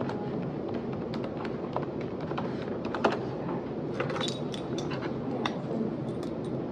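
Typing on a computer keyboard: irregular light keystroke clicks with one louder knock about three seconds in, over steady room noise. Toward the end, a brief metallic jingle of keys on a lanyard.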